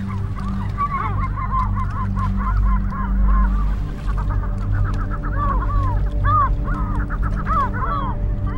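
A flock of gulls calling, many short arched cries overlapping, with a lull about halfway through and louder cries near the end, over a low steady rumble of wind.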